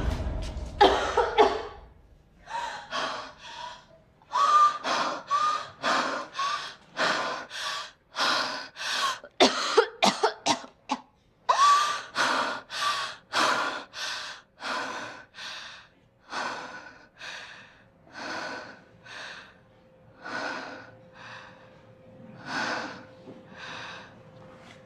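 A person breathing hard in a long run of ragged gasps, some with a brief voiced catch, coming more slowly and more faintly toward the end.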